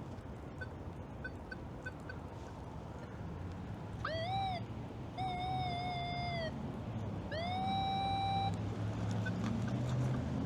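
Nokta Triple Score metal detector sounding three target tones as the coil sweeps over a target, each a beep of about a second whose pitch bends up and down with the sweep.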